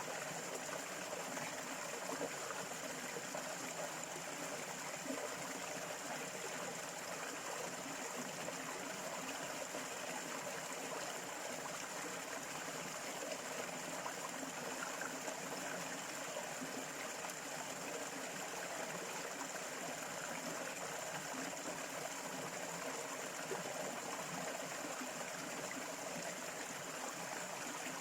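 A stream running steadily, water trickling and gurgling without a break, with a thin steady high tone over it.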